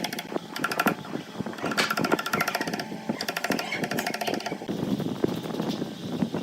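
A power tool rattling rapidly in repeated short bursts of about half a second to a second, stopping and starting several times.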